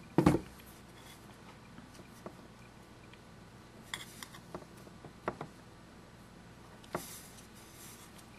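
A single sharp knock on the work surface just after the start, the loudest sound. Then scattered light taps and clicks of a needle tool and fingers working fabric into glue on the board, with a brief rustle a few seconds in and again near the end.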